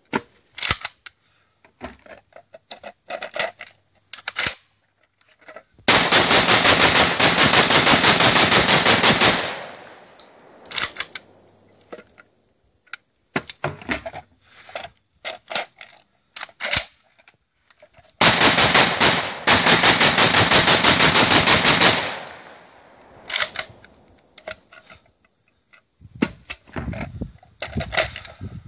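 Saiga 12 semi-automatic 12-gauge shotgun fired from a drum magazine in two long rapid strings of several shots a second, each lasting about four seconds, the first about six seconds in and the second about eighteen seconds in. Between the strings come scattered clicks and knocks of drum changes and handling.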